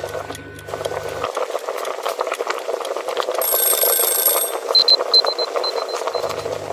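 Electronic timer alarm going off: a second-long buzzy tone, then a quick run of high-pitched beeps, over a steady crackling background noise.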